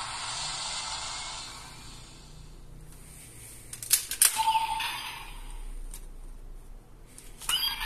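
Plastic clicks from an Ultraman Trigger toy light-stick being handled as a key is inserted, each followed by short electronic sound effects from its speaker. An earlier electronic effect fades out at the start.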